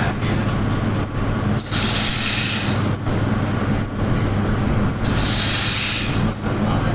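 Loud, steady industrial machinery noise with a low hum, broken twice by about a second of loud hissing, about two seconds in and again about five seconds in.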